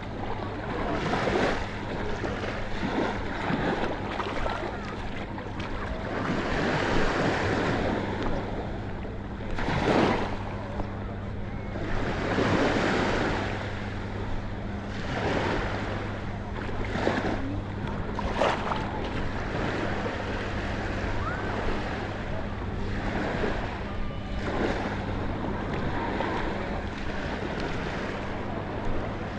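Small sea waves washing onto the shore, surging now and then, with wind buffeting the microphone and a steady low hum underneath.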